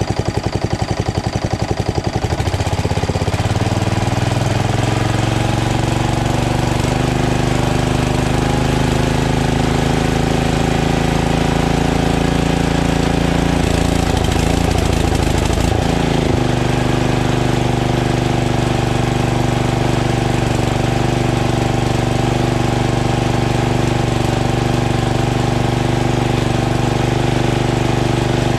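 Craftsman LT2000 lawn tractor engine running: it pulses at a low, uneven idle for the first couple of seconds, then speeds up to a steady higher speed. It wavers briefly a little past halfway, then runs steadily again.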